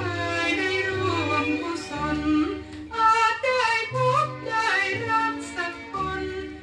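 A woman singing a slow Thai popular song in long, gliding phrases over band accompaniment, played from a vinyl record.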